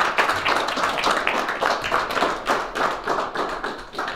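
A small audience clapping, a dense run of handclaps that tapers off near the end.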